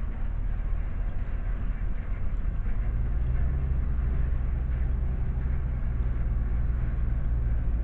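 Freight train cars, including tank cars, rolling past with a steady low rumble of wheels on rail.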